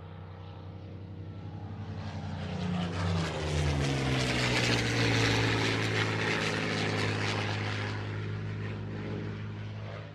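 Propeller aircraft engine passing by: a steady drone that grows louder, with its note dropping in pitch about three seconds in as it goes past, then easing off slightly.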